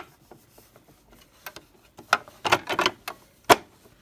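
Handling noises as a part is fitted back onto a serger: a few soft scrapes and knocks, a cluster of them about two to three seconds in, then a single sharp click near the end.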